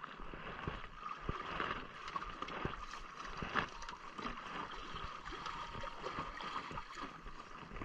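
Sea water lapping and gurgling against the hulls of a small catamaran afloat, with scattered light knocks.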